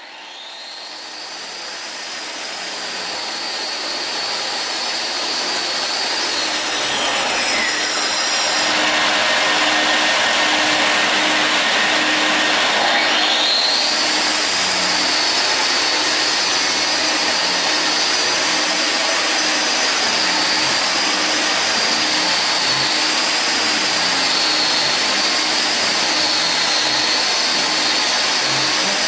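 Handheld concrete grinder running with a high whine that sags in pitch about six seconds in, as the tool bogs down under load, and climbs back at about thirteen seconds, over a steady rushing grinding and suction noise.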